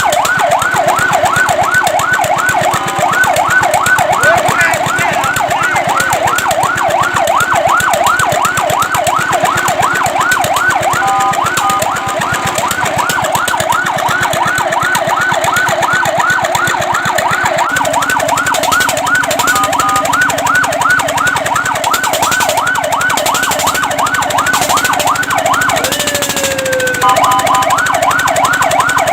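Fire truck's electronic siren sounding in a fast yelp, a loud rapid rising-and-falling wail repeating several times a second. Now and then it switches briefly to a steady two-note tone.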